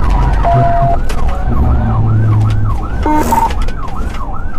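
Police car siren on a fast yelp, rising and falling about two to three times a second, over the low rumble of the cruiser at highway speed. A short electronic beep sounds about three seconds in.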